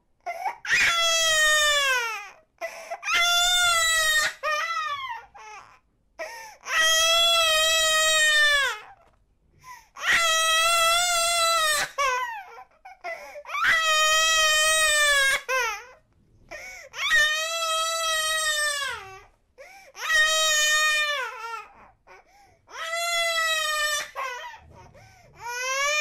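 An eight-month-old baby crying hard: about eight long wails, each around two seconds and dropping in pitch at the end, with short gaps for breath between them.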